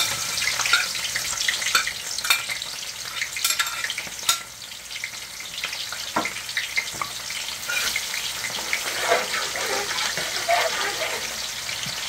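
Sliced red onions sizzling in hot vegetable oil in a large metal pot, a steady frying hiss. A metal spatula stirring them clinks and scrapes against the pot now and then.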